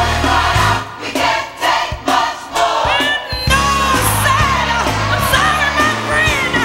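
Gospel music: voices singing together over a bass line and a steady beat.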